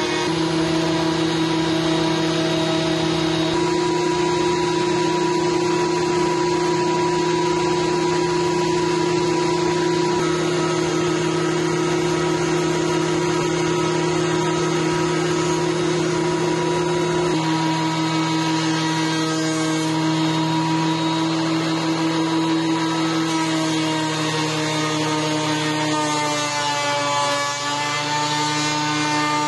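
Benchtop thickness planer running continuously as thin wooden strips are fed through it, a steady machine whine. The pitch sags briefly and recovers a few seconds before the end.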